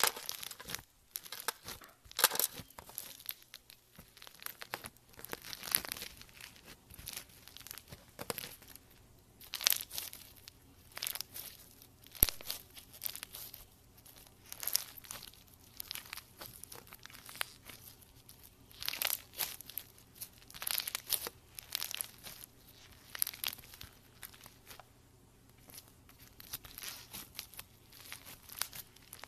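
Foam-bead slime (floam) being squeezed and pulled apart by hand, giving bursts of crunchy crackling and popping with each squeeze, every second or two.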